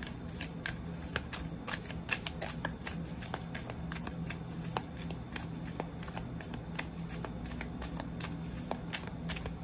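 A deck of tarot cards being shuffled by hand: a steady run of short, crisp card slaps and flicks, several a second.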